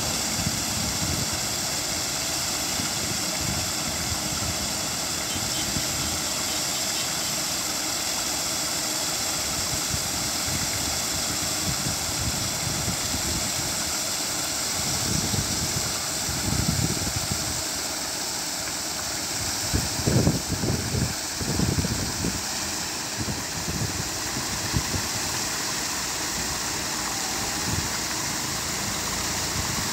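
Paddlewheel aerators churning pond water: a steady splashing rush with a mechanical running note underneath, and a few louder low rumbles about halfway through and again about two-thirds through.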